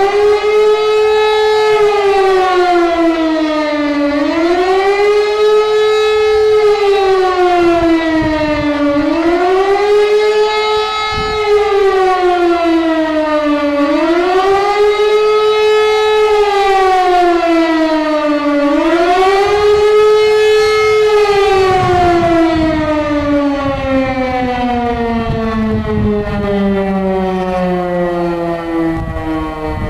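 E57 electromechanical civil-defence siren sounding the public-warning signal, a loud wail whose pitch rises and falls about every five seconds. About two-thirds of the way through it stops cycling and its pitch falls steadily as the rotor winds down.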